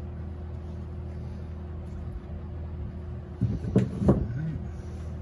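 A steady low hum, with a short cluster of knocks and clunks about three and a half seconds in; the loudest is near four seconds.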